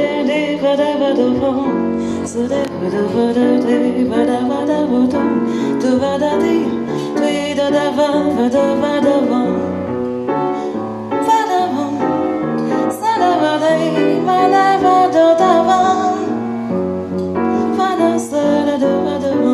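A woman singing a slow hymn with grand piano accompaniment, her held notes wavering with vibrato.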